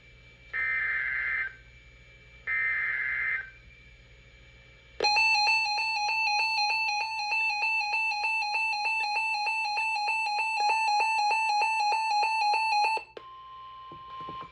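Emergency Alert System alert over NOAA Weather Radio. It opens with one-second bursts of screechy digital header tones, three in all, the last two heard, then a loud, steady, buzzy alert tone for about eight seconds. Near the end that gives way to a fainter single tone, ahead of the severe thunderstorm warning message.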